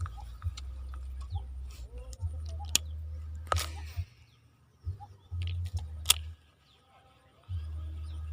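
Outdoor field sound: a deep low rumble that comes and goes in stretches, several sharp clicks, and faint bird chirps.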